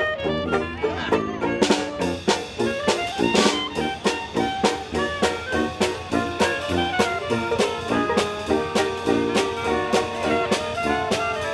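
Upbeat jazzy instrumental music with a drum kit and brass keeping a steady beat.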